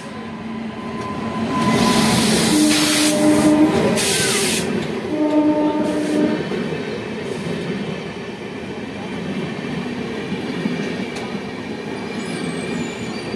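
Two trains passing each other at speed, heard from an open coach door: a loud rush of air and wheel noise as the oncoming train reaches the door, with two blasts of a train horn, each about a second long, a few seconds in, then the steady rumble of its coaches going by.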